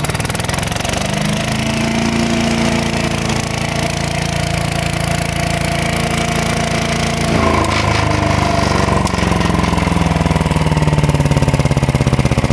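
Gas wood chipper's small engine running loudly just after a pull-start, coming up to a higher speed about a second in. About seven seconds in the sound changes and a higher whine sets in that slowly falls.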